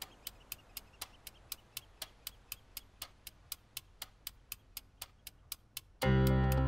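Clock ticking sound effect, a steady run of sharp ticks at about four a second. About six seconds in, music cuts in loudly with sustained chords over a deep bass.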